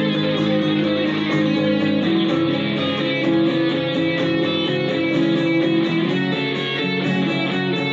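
Electric guitar being played, with sustained notes and chords.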